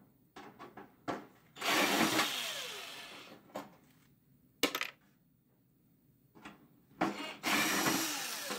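Power driver backing out two security screws, one after the other, each run lasting about two seconds and fading out, with a sharp metallic click between them.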